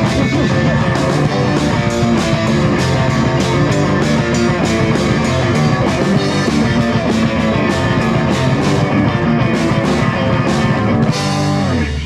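Rock band playing guitar over a steady drum beat, the music stopping near the end.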